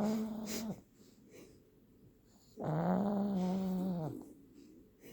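A sleeping pug snoring. It gives long, steady-pitched snores: one ends just under a second in, and another starts about two and a half seconds in and lasts about a second and a half.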